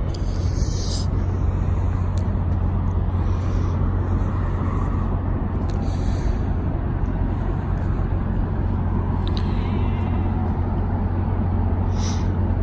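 Steady low rumble of an idling engine nearby, with a few faint scuffs and clicks over it.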